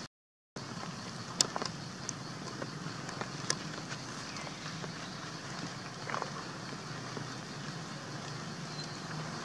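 Steady low outdoor hum with a few faint scattered clicks and rustles; the sound drops out completely for about half a second just after the start.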